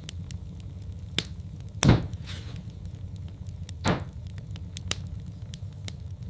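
Wood fire crackling in a fireplace: a steady low rumble under scattered small snaps, with two louder pops about two seconds in and two seconds later.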